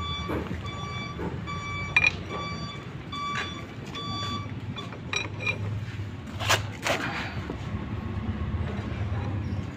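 A vehicle's reversing beeper sounding in an even series, a little under two beeps a second, stopping a bit over four seconds in, over the low rumble of an idling engine. Then a few sharp knocks.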